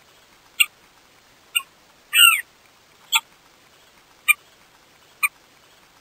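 Somali courser calling: five short, sharp notes spaced about a second apart, with one longer, wavering call about two seconds in.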